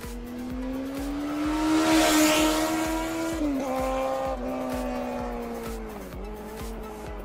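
Race-car engine revving, its pitch climbing slowly and dropping sharply twice as if shifting gear, with a screech of tyres about two seconds in. Background music with a steady beat runs underneath.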